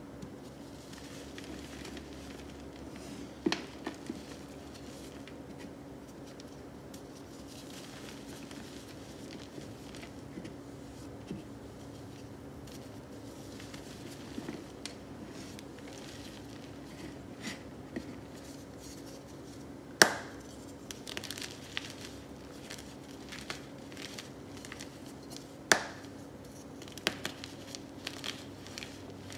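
Gloved hands crushing and crumbling blocks of dyed gym chalk into soft powder on a tray: soft crunching and sifting with scattered sharp cracks as pieces break, the loudest about two-thirds of the way through. A steady low hum runs underneath.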